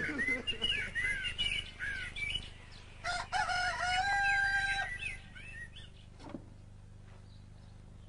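A rooster crowing once, about three seconds in, ending on a note held for about a second. Short chirping bird calls come before it.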